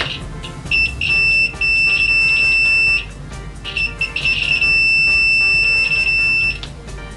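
Extech DM220 mini multimeter's continuity beeper sounding a steady, high-pitched, loud beep as its test leads are held together. There are two long beeps of two to three seconds each; the first breaks off briefly just after it starts, and the second cuts in choppily at first. The beep measures about 82 dBA.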